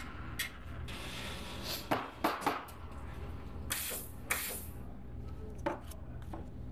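Unic espresso machine work: metal clinks and knocks, then two short sharp hisses of steam about four seconds in as the steam wand is purged after frothing milk, and another knock near the end as a paper cup goes onto the drip tray, over a steady low hum.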